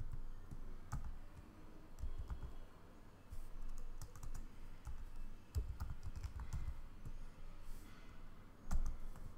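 Computer keyboard typing: irregular keystrokes in short runs with pauses between, and one sharper, louder click near the end.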